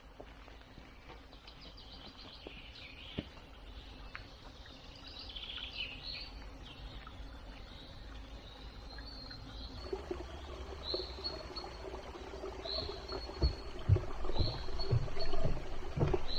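Forest birds chirping and singing over faint outdoor background noise, with one call repeated about every two seconds in the second half. From about ten seconds in, a louder layer with steady low tones and heavy thumps joins.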